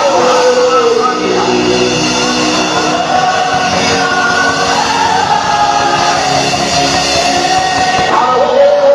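Live gospel worship music: voices singing a melody over full instrumental accompaniment, loud and continuous.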